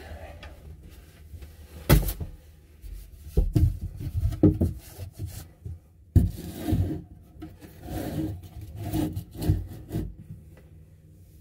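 Knocks and scraping as a person braces against a wooden door frame and shelving while climbing. There is a sharp knock about two seconds in, a few more knocks after it, then a busy run of bumps and rubbing in the second half.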